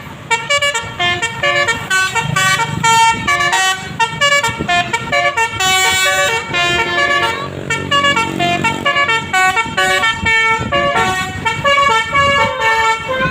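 Bus basuri horn, a multi-tone musical air horn, playing a tune of quick, steady notes, one after another.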